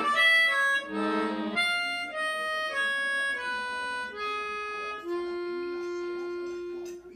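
Melodica played in improvisation: a quick flurry of notes, then a slow line of held notes stepping downward, ending on one long low note about five seconds in.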